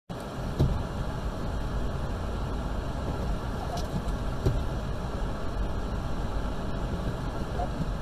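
Steady low rumble of a car's engine and tyres on a snow-covered road, heard from inside the cabin, with a few faint knocks.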